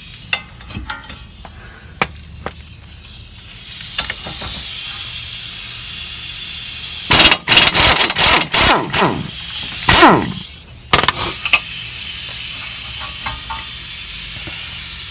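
Scattered metallic clicks and clinks of tools on the brake caliper bracket bolts, then a steady hiss of air. Loud bursts of an air tool run between about 7 and 11 seconds in, and its pitch falls as it spins down.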